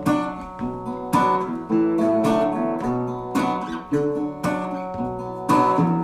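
Background music: acoustic guitar playing a run of plucked and strummed notes.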